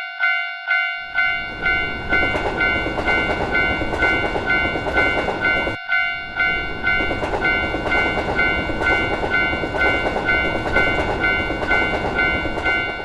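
Japanese railroad crossing warning bell ringing its repeated 'kan kan' tone, about two and a half strikes a second. From about a second in, a train rumbles past over it, cut off for an instant near the middle and going on until near the end.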